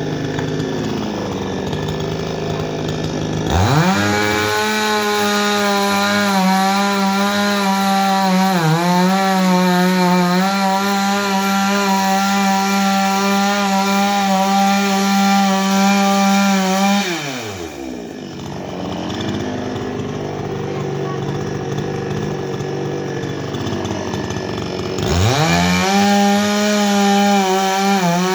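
Gasoline chainsaw idling, then revved up sharply and held at high speed with a brief dip. It drops back to idle and is revved up again near the end.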